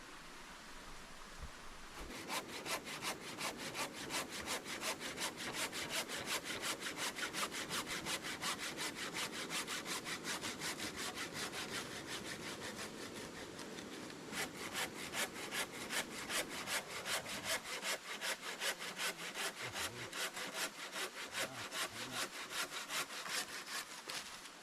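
Hand saw cutting through wood in steady back-and-forth strokes, starting about two seconds in and pausing briefly around halfway before carrying on.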